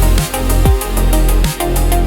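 Electronic music with a heavy bass line and punchy kick drums whose pitch drops quickly, about two beats a second, under sustained synth tones.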